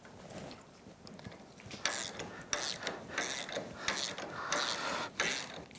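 Ratchet wrench clicking in short back-and-forth strokes as it turns the nut on a threaded-rod bearing press, drawing a roller bearing into a motorcycle rear suspension linkage lever. The strokes start about two seconds in and come roughly twice a second.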